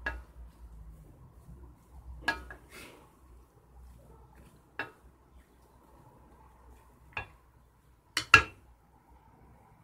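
Wooden spoon stirring grated apples in a stainless steel pot, with a faint scraping and a sharp knock of the spoon against the pot every second or two. The loudest knocks come in a quick pair near the end.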